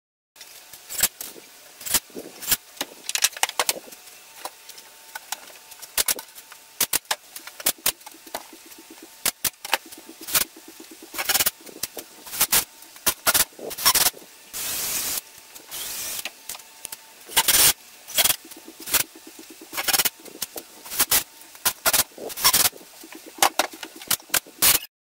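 Cordless driver running in short bursts, driving screws into cabinet panels, amid sharp knocks and clatter of boards and tools being handled.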